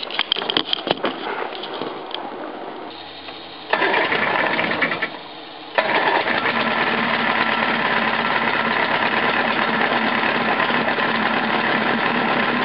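A few knocks and rustles, then the electric starter of a Johnson 28 outboard engaging and turning the motor over in two runs: a short one about four seconds in, then a long, steady run from about six seconds in. The Bendix drive now catches the flywheel after being lubricated, instead of the starter just spinning.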